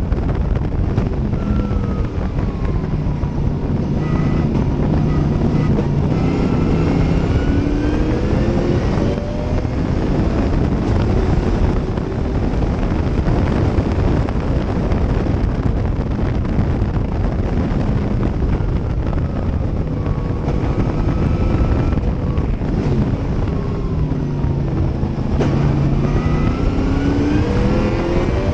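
Cobra-style race car engine heard from the open cockpit at racing speed. The revs drop as it slows for corners, about two seconds in and again near the twenty-second mark, then climb as it accelerates away, twice. Wind noise runs underneath throughout.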